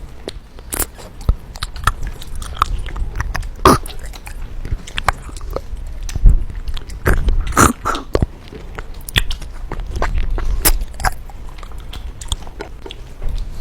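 Close-miked eating sounds of a person eating hor fun rice noodles: continual chewing and biting with many small wet mouth clicks. Louder mouth sounds stand out about four seconds in and again around eight seconds.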